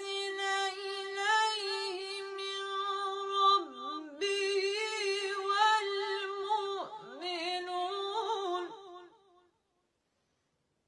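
A woman's solo voice singing slow, long-held notes with wavering ornaments and slides, no clear words, breaking off about nine seconds in.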